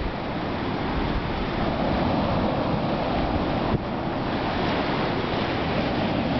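Ocean surf breaking and washing up a sandy beach, a steady rushing, with wind buffeting the microphone.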